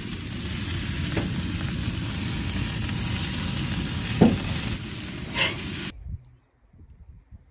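Chicken-skin-wrapped burgers and chicken thighs sizzling on a grill grate: a steady, dense hiss with a low rumble underneath and one sharp knock about four seconds in. The sizzle cuts off suddenly about six seconds in, leaving only faint sounds.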